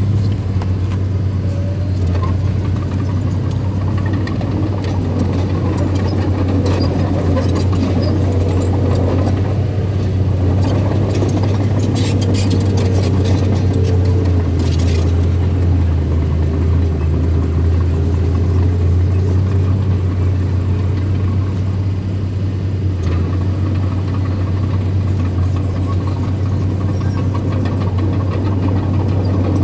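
Bulldozer engine running steadily with a deep, even hum, joined by a faint higher whine.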